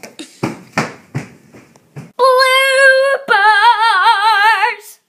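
A girl sings one loud held note, then a slightly lower note with a wide wobbling vibrato. Before the singing there are about two seconds of knocks and rustling.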